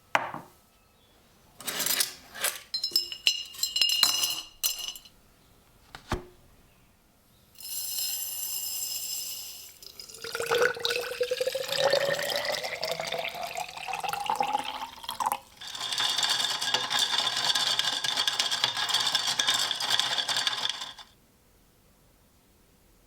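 Glass and metal clinking, then liquid poured into a container, its pitch rising steadily as it fills, followed by several seconds of steady running or pouring water that cuts off.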